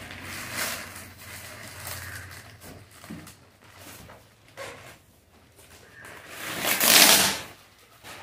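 Clear plastic packing bag rustling and crinkling as it is pulled off a cardboard appliance box, in a few short bursts and then a long, much louder rustle about seven seconds in.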